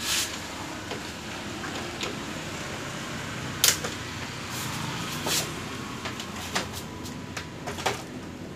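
Scattered plastic clicks and knocks as the plastic frame and LCD panel of a Samsung UA40F5000 LED TV are lifted off its backlight assembly, with one sharp click a little over three and a half seconds in. A steady low hum runs underneath.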